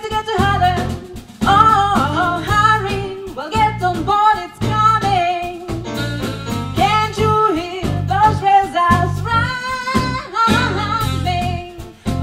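Swing jazz band playing: a female voice sings a gliding, wavering melody over drum kit, bass line and saxophone.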